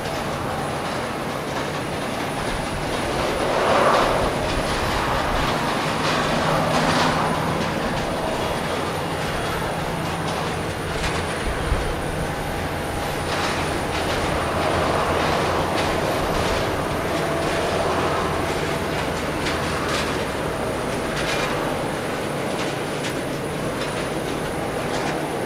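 Boeing 737-800's CFM56-7B turbofan engines at taxi power as the airliner rolls past: a steady rumble and hiss with a faint whine, swelling a few times, with one brief click about halfway through.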